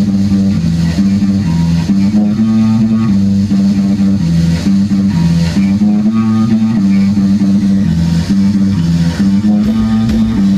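Rock band playing live with no vocals: a repeating bass-guitar riff is the loudest part, over electric guitar and a drum kit.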